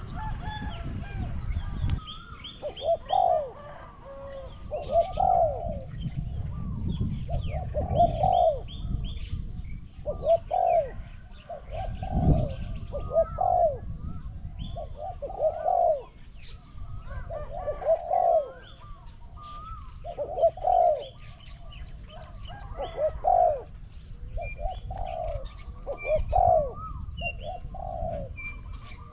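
Spotted doves cooing in repeated phrases of two or three notes every couple of seconds, with small birds chirping faintly higher up. A low wind rumble on the microphone swells about twelve seconds in.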